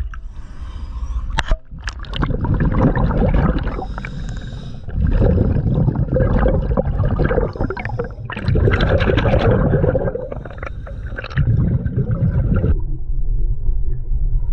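Heard underwater: a diver's exhaled breath bubbling out in four long surges a second or two apart. A sharp knock comes about a second and a half in.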